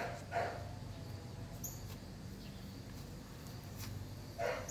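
A dog barking in short bursts: two quick barks at the start and another near the end.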